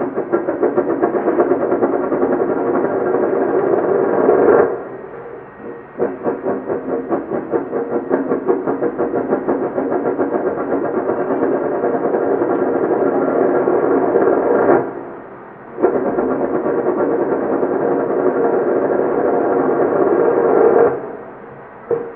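Drinking glass spinning on its rim on a wooden table, giving a ringing, rattling drone that pulses rapidly. It runs three times: it stops about four and a half seconds in, starts again, stops near fifteen seconds, starts again and stops about a second before the end.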